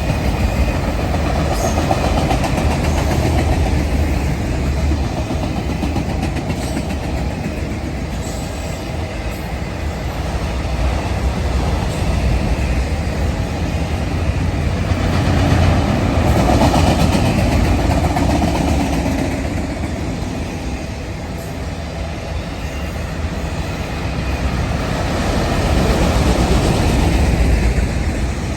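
Freight train cars rolling past: a steady rumble and rattle of steel wheels on rail that swells and eases slowly several times.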